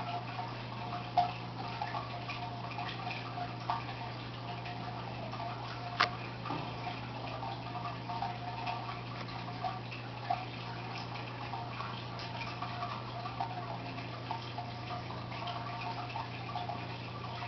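Fish tank with its pump humming steadily under bubbling, dripping water, with small irregular clicks and one sharper click about six seconds in.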